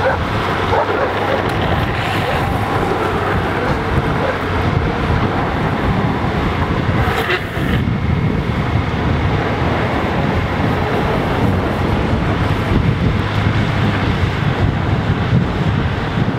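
Wind rushing over the microphone together with road noise from rolling on asphalt during a fast downhill skateboard run, steady throughout, with a brief sharper sound about seven seconds in.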